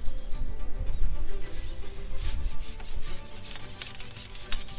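Background music with held notes, under rubbing noise, a low rumble and a quick run of clicks that grow denser in the second half.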